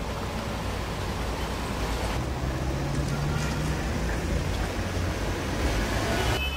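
City street traffic: a steady rumble of passing vehicles. The sound changes abruptly about two seconds in, and a low engine hum stands out briefly in the middle.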